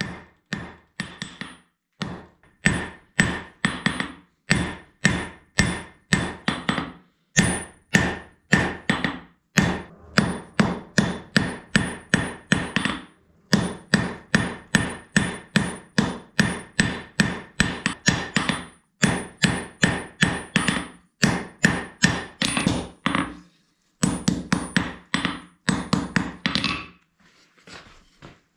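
Hand hammer striking a red-hot bloomery-iron spearhead on a steel anvil while forming the blade core. The blows come in quick runs of about three a second with short pauses between, over a ringing anvil tone. Near the end they become sparse and faint.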